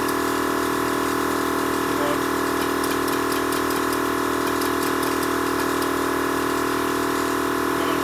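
Electric air compressor for an air-ride suspension running steadily, building pressure in the system.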